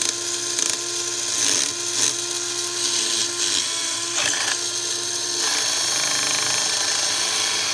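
Small Lego electric motor running at a steady speed, with a high whine and a steady hum tone; the hum drops out briefly twice. It is the sound source of a homemade Lego Technic 'synthesizer'.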